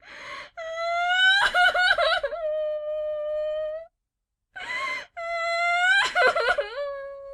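A girl crying: two long wailing sobs, each starting with a breathy gasp of a breath, the pitch wobbling and breaking in the middle of each wail before it is held and trails off. There is a short silence between them about four seconds in.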